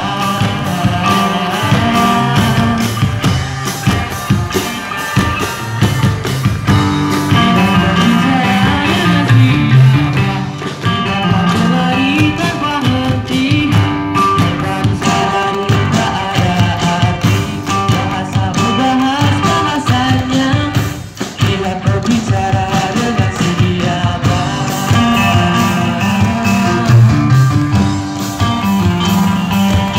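Live music: a steady beat played on used paint buckets as percussion, together with a band and a choir singing.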